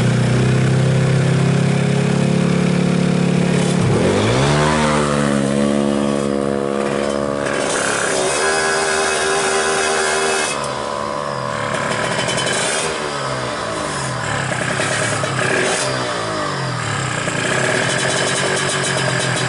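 Suzuki Smash motorcycle's single-cylinder four-stroke engine, bored up to 130cc and fitted with an AHRS aftermarket exhaust, running loud at high revs. About four seconds in the pitch drops sharply and climbs again, and later it rises and falls repeatedly as the engine is revved up and let off.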